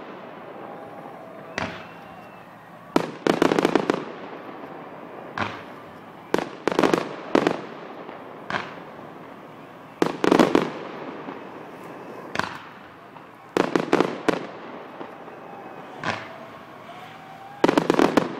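Aerial fireworks shells bursting: sharp bangs, often two or three in quick succession, coming every second or two, each dying away in an echoing tail.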